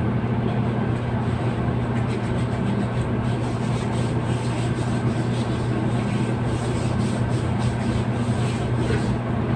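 Steady low hum, such as a room air conditioner or electrical hum, with faint soft rubbing as body lotion is worked into the skin by hand.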